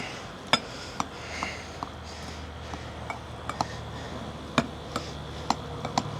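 Knife chopping avocado on a cutting board: irregular sharp knocks, about two a second.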